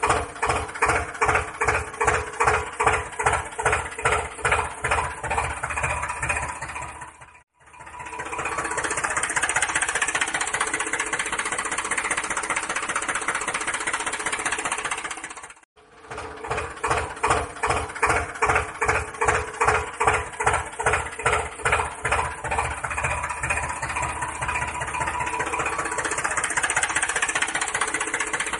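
Diesel tractor engine running with an even chug of about three beats a second. It cuts out twice, and between the cuts it runs as a steadier drone.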